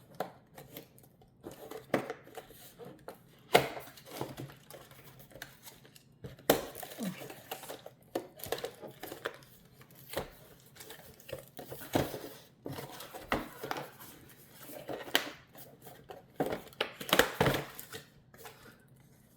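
Small toy packaging being handled and opened: irregular crinkling and tearing of wrapping, with light clicks and taps of plastic parts.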